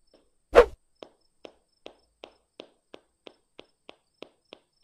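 One thump, then a steady run of soft, even taps about two and a half per second: the mysterious night-time sound, which turns out to be dough being pounded.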